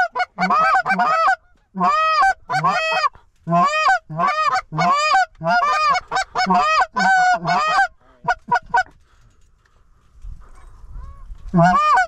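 Hand-blown Canada goose calls sounding rapid honks and clucks in quick runs, stopping about eight seconds in. A few faint clucks follow, then one more loud honk just before the end.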